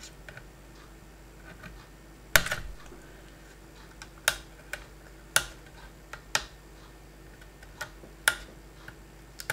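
Sharp clicks and light taps from handling the G1200 digital microscope's screen as it is worked free of its housing and ribbon connector: about half a dozen separate clicks, the loudest about two and a half seconds in, with smaller ticks between.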